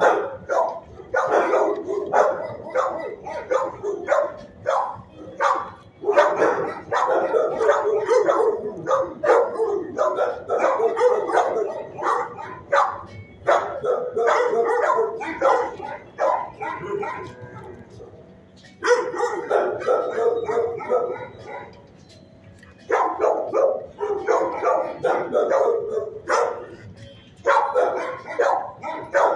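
Shelter dogs in kennel runs barking over and over, with a couple of brief lulls about two thirds of the way through.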